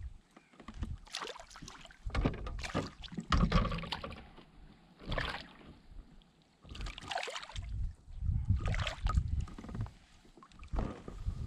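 Kayak on the water: irregular knocks and rustling noise a second or two apart, some with a heavy low rumble.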